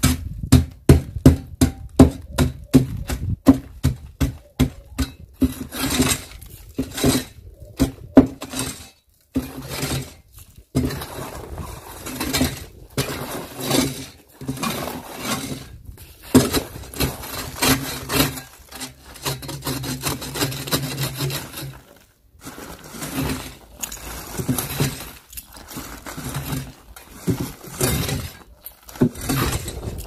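Shovel blade chopping and scraping crusted ice and snow off a concrete slab: repeated sharp chops, several a second for the first nine seconds or so, then fewer chops with rough scraping between them.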